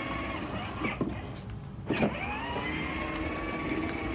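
A small electric motor in a toy whining steadily. It fades out about a second in, with a few light knocks, then spins back up with a rising whine about two seconds in.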